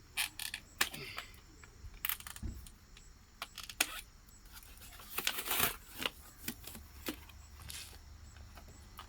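Scissors snipping zip ties and plastic packaging being handled on a new e-bike: a run of sharp, irregular clicks and snaps, with a longer rustle about five seconds in.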